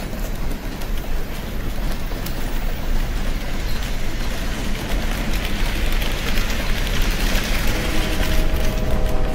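HO scale model freight train rolling past close by on sectional track: a steady rattling rumble of wheels and cars, with a faint hum of a few steady tones coming in near the end as the caboose rounds the curve.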